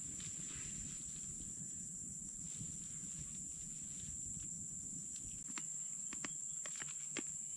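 Steady high-pitched drone of insects in tropical forest, over the low rumble of a campfire burning close by; the rumble drops away about five seconds in, and a few sharp clicks follow.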